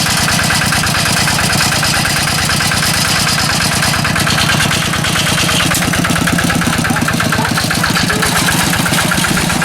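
An engine running steadily with an even, fast pulse.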